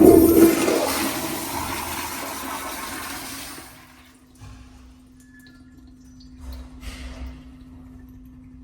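American Standard Afwall wall-hung toilet flushing: a sudden loud rush of water that fades and cuts off after about three and a half seconds. A faint steady hum runs underneath, and a softer rush of noise comes near the end.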